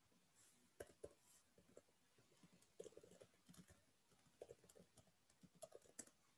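Faint computer keyboard typing: irregular short key clicks with brief pauses between runs.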